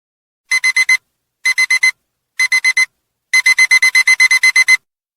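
Electronic alarm-clock beeping, the signal that the 19-minute countdown has reached zero. Short high beeps come in quick groups of four, three times, then in a longer rapid run of about a dozen.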